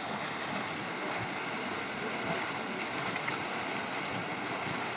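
Steady bubbling and churning of Mud Volcano, a steaming thermal pool of muddy water.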